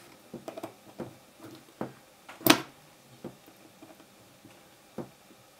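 Scattered light clicks and taps of a precision screwdriver and fingers on an iPod Video's metal case as the screws holding its front plate are worked loose, the loudest tap about two and a half seconds in.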